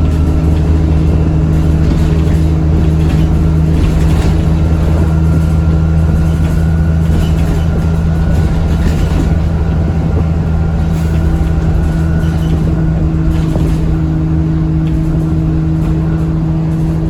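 Inside an ADL Enviro400 double-decker bus on the move: the diesel engine runs with a steady drone. From about four seconds in, a thin high whine from the turbocharger rises slightly, then fades near the end.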